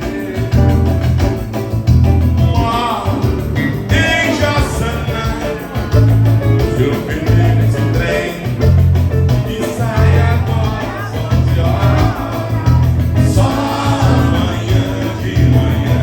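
Dance band playing Latin-style popular music with a singer, over a steady, heavy bass line.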